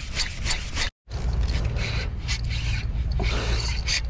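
Daiwa Saltist MQ 4000 spinning reel being cranked on a jig retrieve, its gears ticking and scraping in quick succession over a steady low rumble. The sound cuts out for a moment about a second in.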